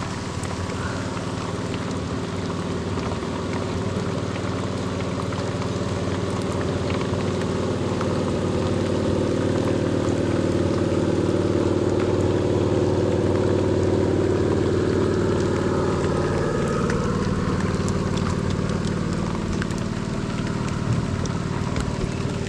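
Heavy rain falling steadily. An engine drones under it, growing louder toward the middle and easing off near the end.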